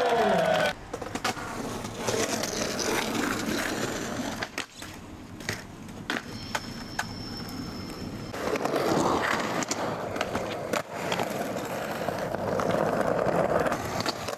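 Skateboard wheels rolling over concrete, with scattered sharp clacks of the board hitting the ground.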